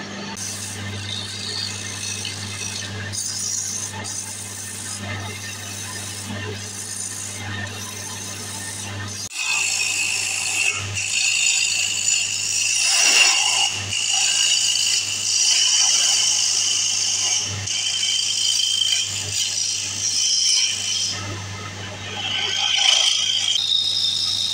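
Wood lathe running with a steady motor hum. From about nine seconds in, a hand turning tool cuts into the spinning wooden blank, giving a louder, steady high-pitched scraping tone.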